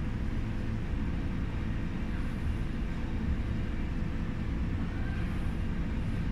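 Steady low rumble of background room noise, with a faint high hiss about every three seconds.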